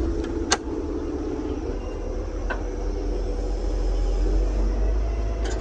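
Excavator's diesel engine running steadily with a low drone, and a sharp metallic knock about half a second in and a fainter one a couple of seconds later.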